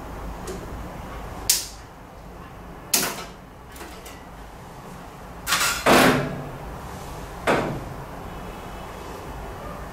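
Side cutters snipping the shipping zip ties off a laser cutter's X-axis gantry: a few sharp snaps, the loudest pair about six seconds in.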